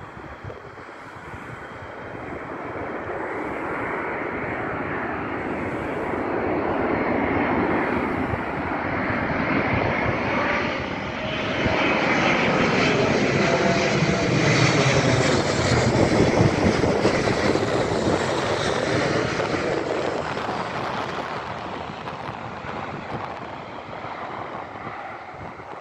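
Twin-engine KLM jetliner passing low overhead on approach to land with its landing gear down: the jet engine noise grows steadily louder, peaks a little past the middle as the plane goes over, then fades as it moves away.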